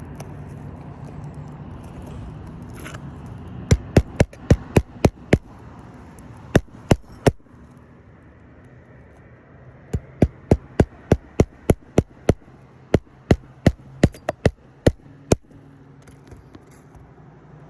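Hammer blows in two quick runs of sharp strikes, about three a second, a few seconds in and again later. They come as the roofing nails of a damaged 3-tab asphalt shingle are worked out to remove it.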